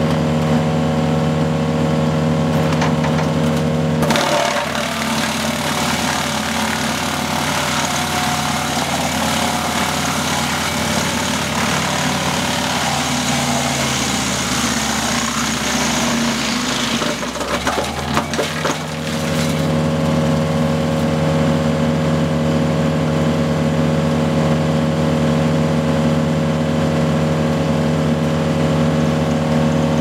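Woodland Mills WC88 PTO wood chipper, driven by the tractor, running steadily. About four seconds in it starts chewing through a log with a loud rough grinding noise for roughly fourteen seconds, its low drive hum sinking in pitch as it takes the load. A little after eighteen seconds it settles back to steady free-running.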